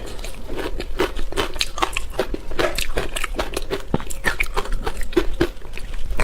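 A person biting and chewing ice: a rapid, irregular run of sharp crunching cracks.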